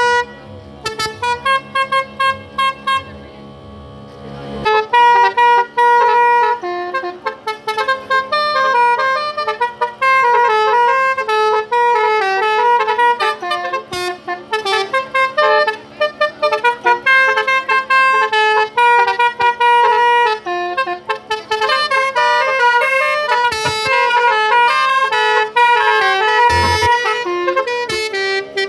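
A Basuri multi-tone telolet car horn plays a fast tune of short, rapidly changing notes. About five seconds in it gets louder and fuller.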